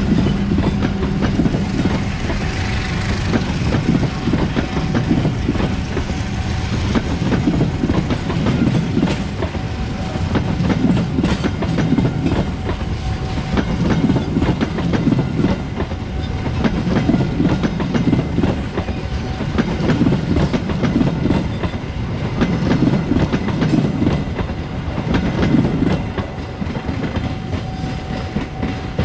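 A long rake of passenger train coaches rolling past close by, their wheels clattering on the rails in a pattern that repeats every two to three seconds. The sound eases near the end as the last coach goes by.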